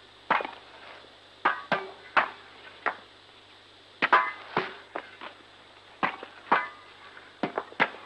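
Hammers striking stone: sharp ringing clinks at irregular intervals, some in quick pairs or threes.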